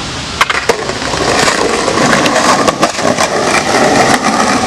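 Skateboard wheels rolling with a steady rumble, broken by scattered sharp clicks and knocks.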